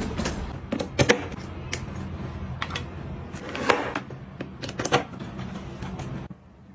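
Scattered sharp clicks and taps of desk work: laptop keys being typed, then a plug pushed into a Bull power-strip socket and a cable clicked into the laptop's port.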